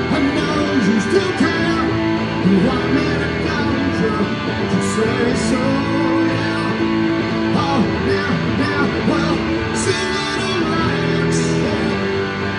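Electric guitar strumming rock chords in a solo live performance, with sharp strum strokes standing out now and then over the ringing chords.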